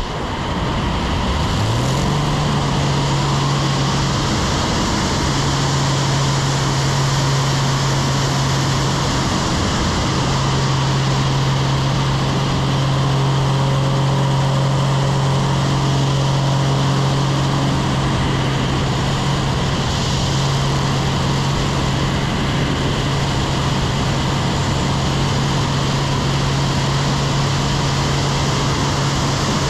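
Aerobatic biplane's piston engine and propeller running at high power, heard from the wing with heavy wind rush over the microphone. The engine's pitch climbs quickly about a second and a half in, then holds a steady drone.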